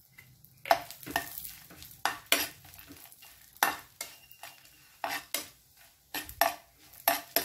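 Steel spoon stirring and scraping chopped almonds around a nonstick frying pan, in about a dozen short, irregular strokes, while the almonds fry in ghee with a faint sizzle.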